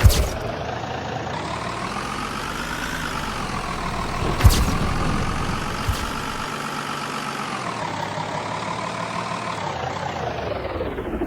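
A road vehicle driving: its pitched engine or tyre whine rises as it speeds up over the first few seconds, holds, then falls near the end as it slows, over steady road noise. There are sharp knocks at the start and about halfway through.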